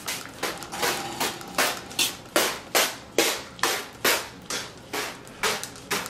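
Trigger spray bottle squirted over and over, a short hiss with each pull of the trigger, about two to three sprays a second.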